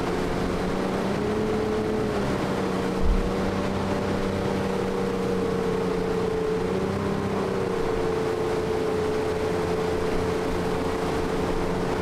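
A motorboat's outboard engine running steadily, its pitch shifting slightly a couple of times.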